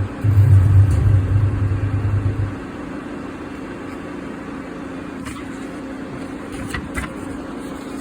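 CNC lathe axis drive buzzing as the carriage is jogged with the hand wheel, stopping about two and a half seconds in, over the machine's steady hum. A few light clicks near the end.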